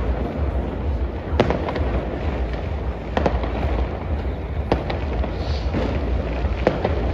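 New Year's Eve fireworks and firecrackers going off: sharp bangs every second or so, some in quick pairs, over a steady low rumble of continuous distant explosions.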